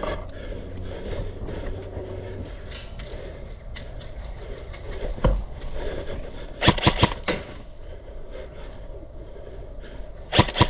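Airsoft guns firing: a quick cluster of four sharp snaps about two-thirds of the way in and two more near the end, over a steady outdoor rumble.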